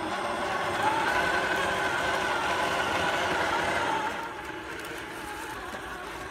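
Traxxas TRX-4 Ford Bronco RC crawler's electric motor and geared drivetrain whining as it drives. The whine rises in pitch about a second in and falls off to a lower, quieter whine around four seconds in.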